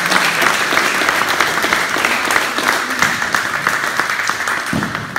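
A group of people applauding, many hands clapping densely together, tapering off near the end.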